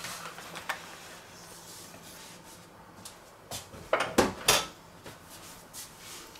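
Stainless steel baking dish being lifted off a wooden board and set aside: a faint scrape, then a few loud metallic clatters about four seconds in as it is put down.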